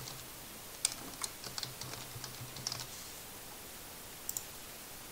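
Typing on a computer keyboard: a quick run of keystrokes lasting about two seconds. About four seconds in comes a short double click from a mouse button.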